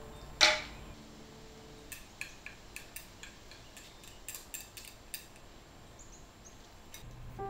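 Tableware at a meal: a sharp knock about half a second in, then light, irregular clicks of chopsticks against a ceramic bowl and plate as the soba and kakiage are eaten. A few faint high chirps near the end.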